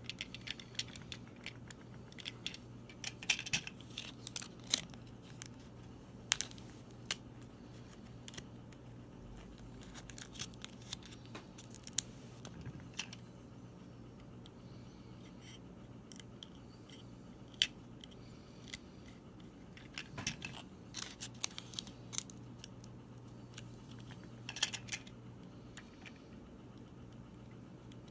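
Irregular sharp clicks and snips of small plastic parts and packaging being handled while a toy candy kit is put together, over a steady low hum.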